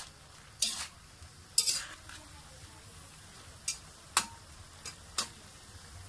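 Metal spatula scraping and turning sautéed bitter gourd (ampalaya) with kikiam and egg in a metal wok, about six short, irregular strokes. The dish is cooked, and this is its last stirring.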